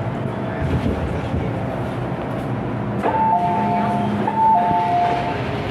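Steady running hum inside an MTR M-Train car. About three seconds in, an electronic two-note chime from the train sounds twice, a higher note joined by a lower one each time.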